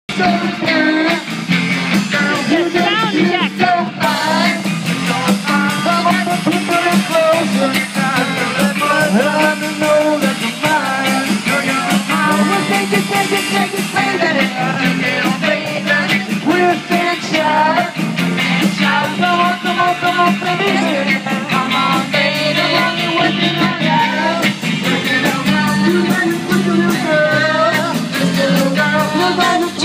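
Live rock band playing: electric guitars and a drum kit with keeping a steady beat, and women singing lead and backing vocals.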